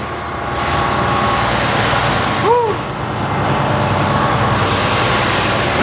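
Steady rushing noise over a low engine hum aboard a ferry in rough seas. About two and a half seconds in comes a brief tone that rises and falls.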